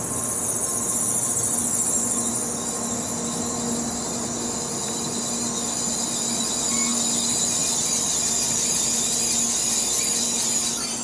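N700A Shinkansen train slowing to a stop, its brakes giving a steady high-pitched squeal over a low hum; the squeal cuts off sharply near the end as the train halts.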